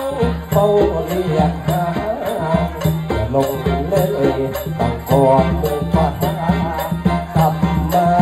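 Isan mor lam band music played through a PA: a steady beat under a bending melody line and a sustained low drone, with no words sung.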